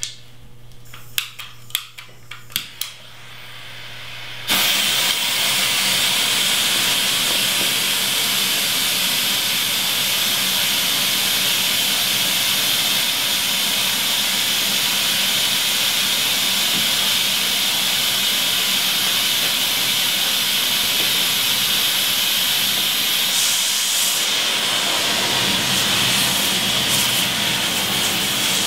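Homemade rocket-candy smoke bomb (potassium nitrate and sugar) being lit: a few sharp clicks, then it catches suddenly about four seconds in and burns with a loud, steady hiss.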